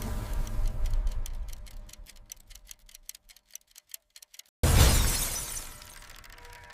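Cartoon sound effects: a low rumble fades out, then a clock ticks rapidly and dies away to near silence. A sudden loud shattering crash comes about two-thirds of the way through and then trails off.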